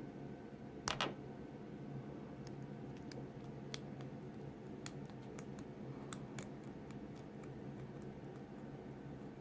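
Lock pick and tension wrench working the pin stack of a brass padlock: scattered faint metallic clicks, with a louder double click about a second in, over a steady low hum.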